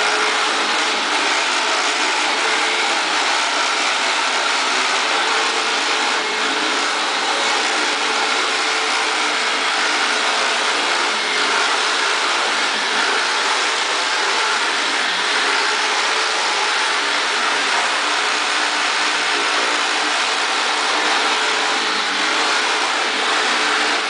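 Upright vacuum cleaner running steadily, a constant motor hum with rushing air, as it is pushed back and forth over a rug.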